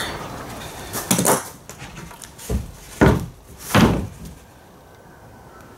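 Wooden knocks as a lumber board and a combination square are shifted and set down on a plywood layout table: about five separate knocks, the loudest two near the middle.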